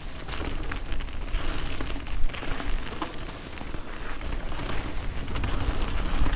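Mountain bike (a Canyon Strive) riding down a dirt trail: tyres rolling over dirt and dry leaves, with scattered clicks and rattles from the bike over bumps and a sharp knock about two seconds in. Wind rumbles low on the camera microphone.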